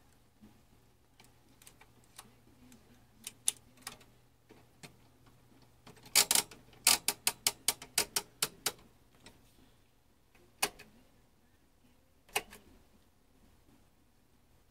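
Detent clicks of a Tektronix 465 oscilloscope's front-panel rotary switch, its TIME/DIV knob turned step by step: a few single clicks, then a quick run of about a dozen clicks, some four or five a second, in the middle, then two more single clicks.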